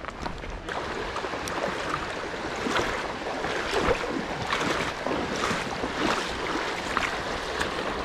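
Footsteps splashing through a shallow, rocky creek over the steady rush of flowing water; the water sound grows louder about a second in.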